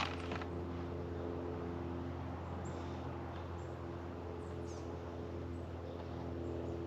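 Steady low background hum with a few faint, short high chirps, like small birds, now and then.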